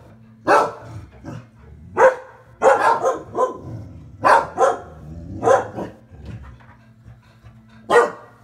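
Pet dogs barking in sharp single barks, with a quick run of barks about three seconds in, then a pause and one more bark near the end.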